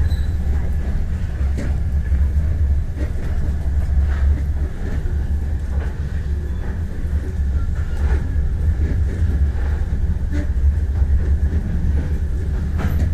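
Northbound SE4 passenger train on the Vietnamese North–South Railway moving at speed, heard from aboard. There is a steady low rumble with occasional clicks from the wheels on the track.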